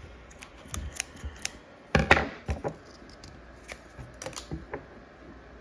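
Hand handling of shoe packaging and a hang tag: scattered small clicks, taps and rustles, with one louder scrape about two seconds in.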